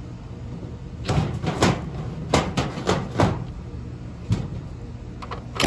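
A series of sharp plastic-and-metal knocks and clicks from the air-conditioner's outdoor electrical disconnect being handled, as its pull-out plug is pushed back in to re-power the condensing unit, over a steady low hum.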